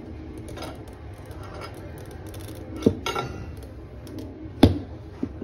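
Steel tire irons clinking against a spoked dirt bike rim while prying the tire bead over it: a few sharp metallic clinks, the loudest near the end.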